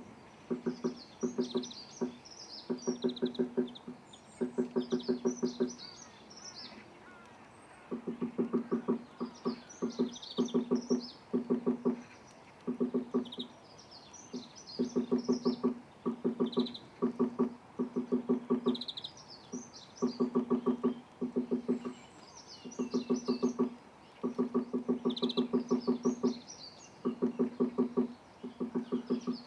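Woodpecker chiselling out its nest chamber in a tree trunk: quick bursts of knocks, about eight to ten a second, repeated every second or two. Small birds chirp high above.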